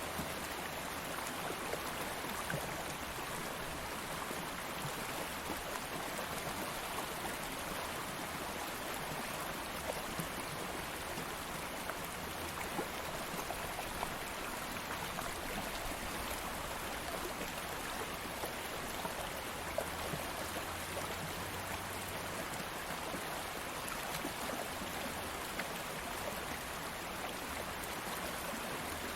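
A calm stream of water flowing steadily, a continuous rush with small splashes here and there.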